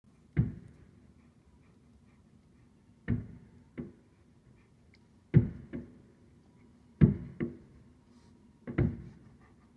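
Aerial firework shells bursting: eight deep booms spread over about nine seconds, several of them in close pairs, each with a short echoing tail.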